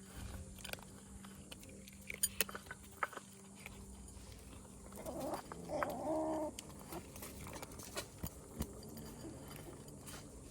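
A kitten meows once, a drawn-out call about halfway through, among scattered small clicks and taps.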